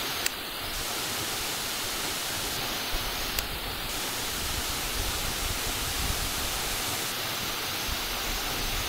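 Waterfall running: a steady, even rush of falling water, with two faint clicks.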